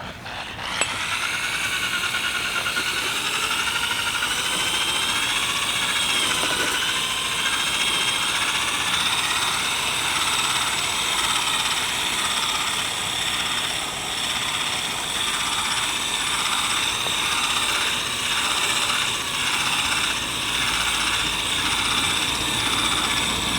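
Power drill spinning an 800-grit sanding disc against a plastic headlight lens: a steady high whine starting about a second in, wavering slightly at first, then with small regular dips in level.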